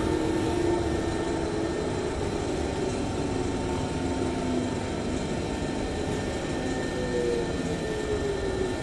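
Singapore MRT train running, heard from inside the carriage: a steady rumble from the wheels and track with a steady electric whine over it, one tone falling in pitch near the end.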